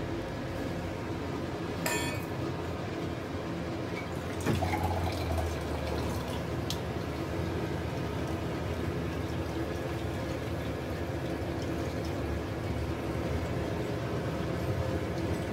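Steady background hiss in a kitchen, with a light ringing clink about two seconds in and a soft knock about four and a half seconds in.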